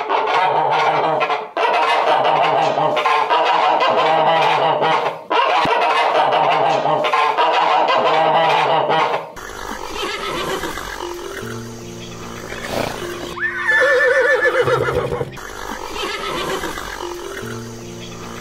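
A flock of birds calling densely over background music for about nine seconds, then the music carries on alone with one single drawn-out animal call partway through.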